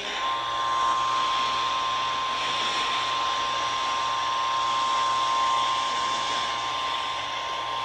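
Emergency Alert System attention signal: a steady electronic tone held without change, starting a moment in, over a constant hiss of radio or broadcast reception. It signals that an emergency alert message is about to be read.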